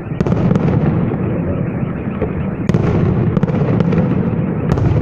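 Fireworks salute going off: a continuous rumble of booms with sharp cracks standing out, one just after the start, a cluster around three to four seconds in and another near the end.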